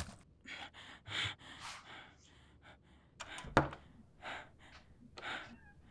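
Foley of a man's short, quick breathy gasps, a string of quiet puffs about every half second, with one sharp click a little past halfway.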